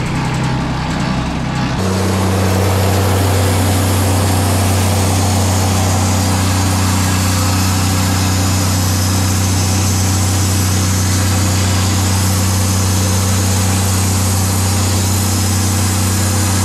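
Wood-Mizer portable bandsaw sawmill running and sawing eastern red cedar: a steady engine hum under a constant hiss, with sawdust blowing out of the discharge chute. The sound steps up about two seconds in and then holds steady.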